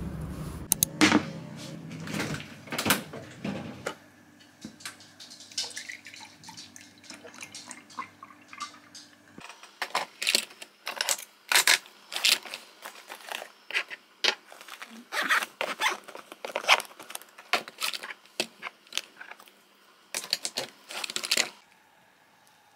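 Small objects being picked up, handled and set down on a wooden desk: irregular sharp clicks and knocks with light rustling of a cloth pouch, after a few seconds of low background rumble at the start.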